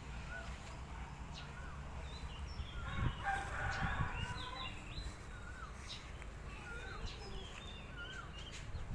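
Birds calling: short chirping notes repeated every second or so, with a denser run of calls about three to four seconds in.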